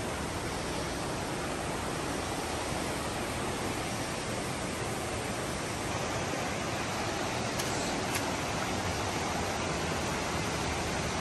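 Steady rushing water, an even hiss that holds at one level throughout.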